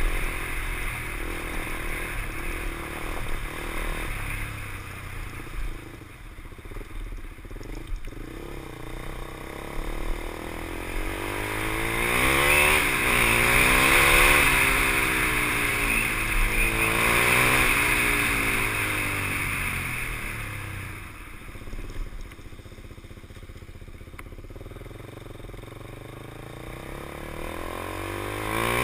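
KTM 390 Duke's single-cylinder engine heard from the rider's position while riding. Its note rises and falls several times in the middle, where it is loudest, then eases to a quieter cruise and picks up again near the end.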